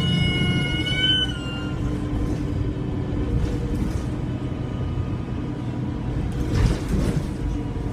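Alexander Dennis Enviro300 bus's turbocharger whistling, a high multi-toned whistle that rises slightly and cuts off about a second in, leaving the diesel engine's low running rumble. A short hiss comes about six and a half seconds in.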